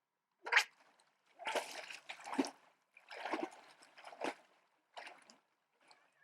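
Water splashing in a series of irregular bursts, the sharpest about half a second in, then fainter splashes.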